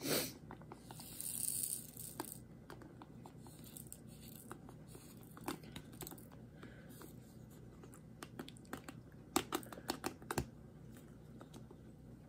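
Faint small clicks and rattles of plastic storage containers and loose diamond-painting drills being handled, with a short rustle about a second in and a quick run of clicks near the end.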